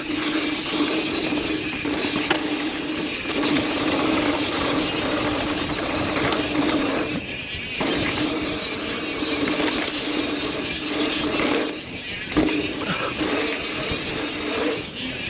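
Mountain bike freehub buzzing steadily as the bike coasts down a dirt trail, over a constant rush of tyre and wind noise and frame rattle. The buzz cuts out briefly three times: a little past seven seconds in, around twelve seconds, and near the end.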